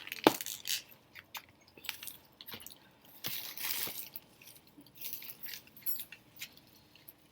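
Close-up eating sounds: wet chewing and mouth clicks and smacks with short breaths between them, with one sharp click about a quarter second in that is the loudest.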